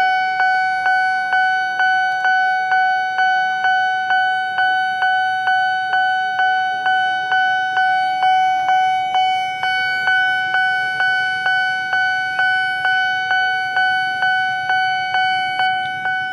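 Railway level-crossing warning bell ringing in a steady repeating pattern, about two strikes a second, each with a bright, clear pitch that fades before the next. It signals that the crossing is closed for an approaching train.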